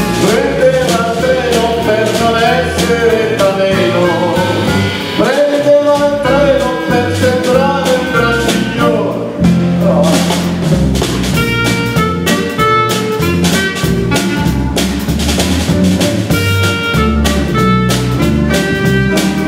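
Live small jazz-blues band playing an instrumental break between sung verses: clarinet playing the melody over hollow-body electric guitar, bass guitar and drum kit.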